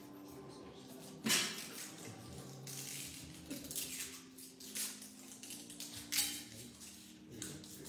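Quiet, steady held low tones under several short bursts of rustling and crinkling, like wrappers or packaging being handled, the loudest about a second in and again about six seconds in.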